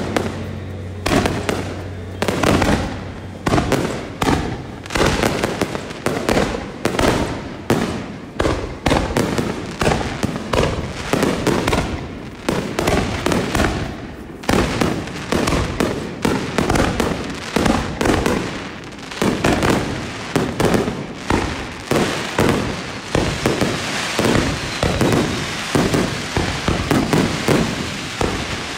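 Fireworks shot off at close range in a rapid barrage of launch bangs and shell bursts, two or three a second. The sound thickens into a denser crackle near the end.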